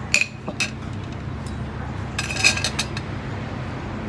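Dishes and cutlery clinking on a table: two sharp clinks at the start, then a quick run of clinks about two seconds in, over a steady low hum.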